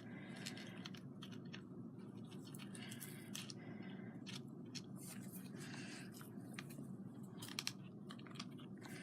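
Faint, irregular snipping and clicking of artificial flower stems being cut with clippers, with light handling of the small plastic pieces.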